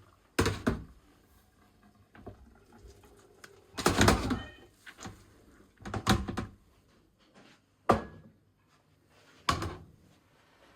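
A series of five sharp knocks and thuds, roughly two seconds apart. The one about four seconds in lasts longer and carries a brief ringing clink.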